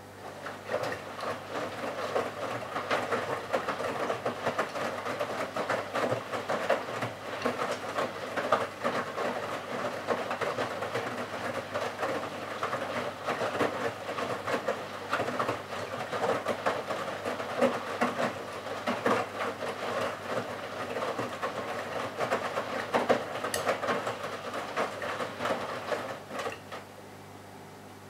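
Bosch Serie 6 WAQ283S1GB front-loading washing machine on its Super Quick 15-minute programme: the drum turns and the laundry tumbles with an irregular swishing clatter. The drum starts just after the beginning and stops about 26 seconds in, a pause between tumbles.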